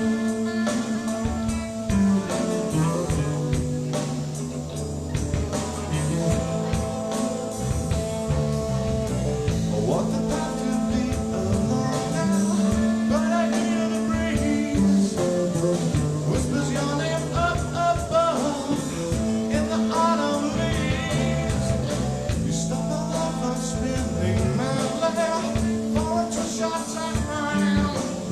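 Rock band playing live, with guitar, a bass line moving in steps, and a singer's voice over the top.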